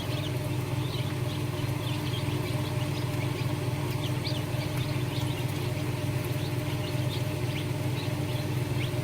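Newly hatched chicks peeping, many short high chirps scattered throughout, over a steady low machine hum from the incubator.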